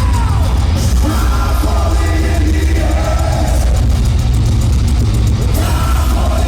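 Heavy metal band playing live, loud, with distorted guitars, heavy bass and drums, and shouted vocals, as heard from the audience.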